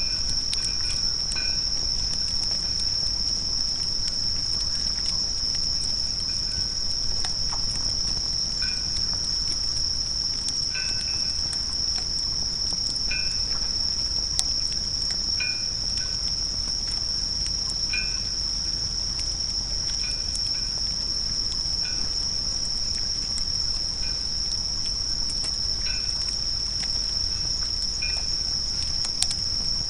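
Continuous high-pitched insect trill from a chorus of night insects, with a lower call in short double notes repeating every two seconds or so, and faint scattered ticks.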